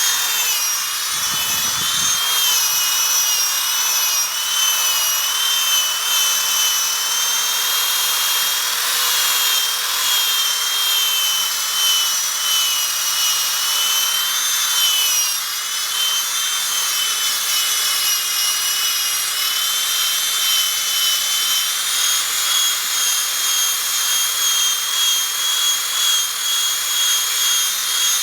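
Powerball buffer running steadily with a high, slightly wavering motor whine as it buffs polish into a boat's acrylic nameplate.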